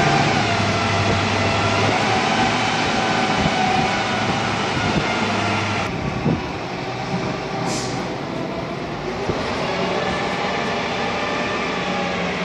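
Heavy diesel container-handling machinery running steadily, loud and close, a low engine hum under a dense mechanical noise that starts abruptly.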